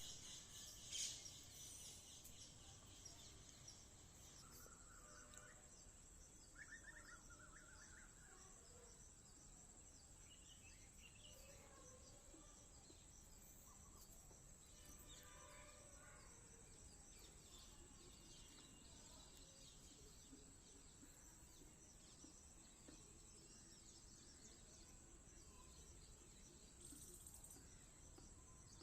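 Faint birds chirping now and then in short calls, over a steady high-pitched background hum.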